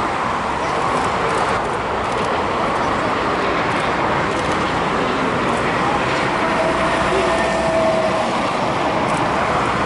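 Boeing 747-8F freighter's four GEnx-2B turbofan engines running at taxi power: a steady jet rumble and hiss, with a faint thin whine coming through about two-thirds of the way in.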